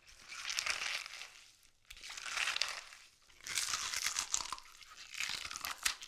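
Crisp raw vegetable being crushed and torn apart, crackling and crunching in four bursts of about a second each with short pauses between them.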